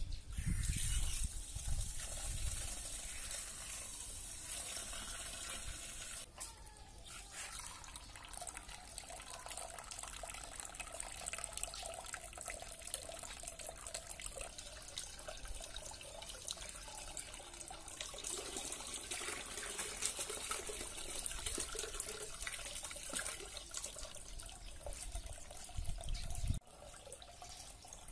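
Water running steadily from two small teapot-shaped spouts and splashing into the water of a small aquarium, fed by a garden hose.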